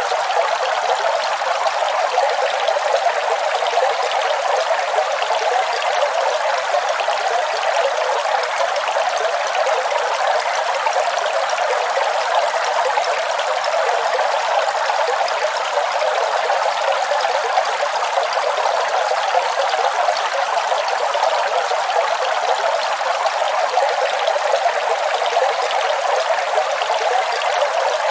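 Waterfall: falling water rushing and splashing steadily, an even hiss with no deep rumble.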